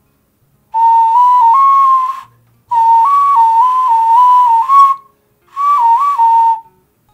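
A small handmade clay ocarina whistle is blown in three short phrases. Each phrase steps up and down between a few high notes as the finger holes are covered and uncovered, and the gaps between phrases are silent.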